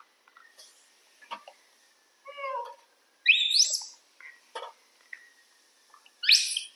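Young macaques squealing as they wait to be fed: a short warbling call about two seconds in, then two loud, high, rising squeals, one in the middle and one near the end. A few sharp clicks fall between the calls.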